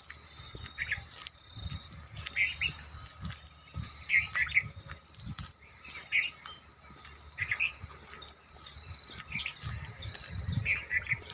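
Birds chirping in short bursts about once a second. Low rumbling noise on the microphone comes and goes underneath and is the loudest part.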